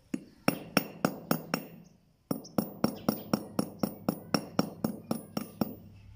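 Hammer striking a rusty rivet held against a piece of railroad rail used as an anvil: sharp, ringing metal-on-metal blows. There are about six quick blows, a short pause about two seconds in, then a steady run of about fourteen more at roughly four a second.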